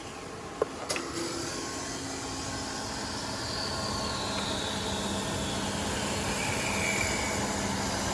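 Genini mini automat wood-turning lathe running steadily as it turns a timber finial. Two sharp clicks come just under a second in, and a faint whine slides down in pitch through the middle.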